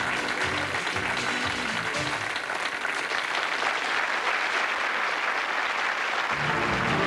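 Studio audience applauding over game-show music. A bass line sounds under the clapping for the first couple of seconds, drops out, and comes back near the end.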